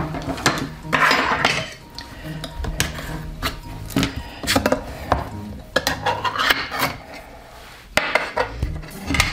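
Metal utensil scraping and clinking inside a tin can of cherry pie filling as the filling is dug out, an irregular run of scrapes and knocks.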